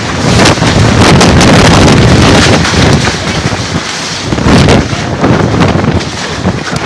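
Strong gusting wind buffeting the microphone, with a heavy low rumble, loudest in the first few seconds and surging again briefly past the middle.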